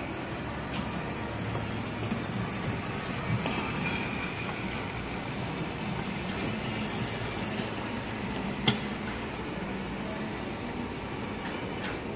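A steady mechanical hum with a few sharp clicks, the loudest about nine seconds in.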